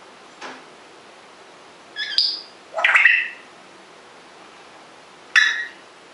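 African grey parrot giving short whistled calls: one about two seconds in, a rising one just after, and a sharp one near the end.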